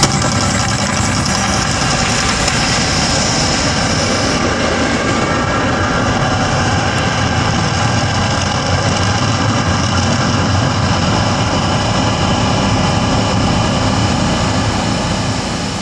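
The Mirage volcano's eruption effects making a loud, steady rumble that eases slightly near the end.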